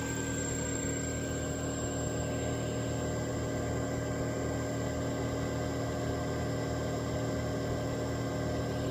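Old toilet ventilation fan running with an abnormal noise: a steady hum with several whining tones over a rushing haze. The owner suspects the grease on the motor shaft and bearings has run dry.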